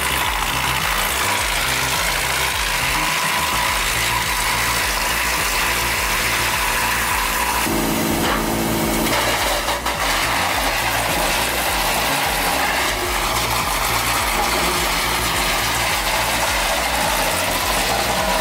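A heavy machine's engine running steadily, with a dense mechanical rumble. About eight seconds in, a pitched whine rises over it for a second or two.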